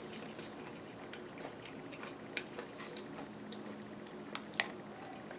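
Close-up chewing of yogurt and granola, with small crunches and clicks scattered through, and a metal spoon working in the bowl. One sharp click stands out near the end.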